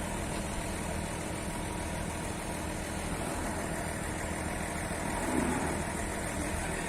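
A motor engine idling steadily in the background, with a low, even hum that does not change.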